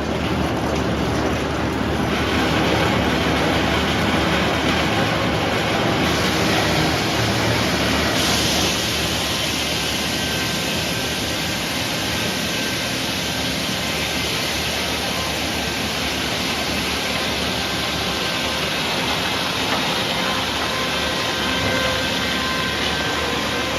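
Sawmill running steadily, with its engine and saw working through a red oak log. About eight seconds in, a brighter, higher hiss joins the sound.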